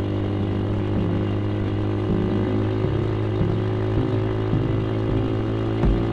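Yamaha Vixion's single-cylinder engine running steadily while riding at road speed, with a steady hiss of wind and road noise over it.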